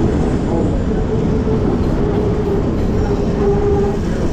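Passenger train running along the track, a steady loud rumble heard from on board; a faint held tone rises over it about two seconds in.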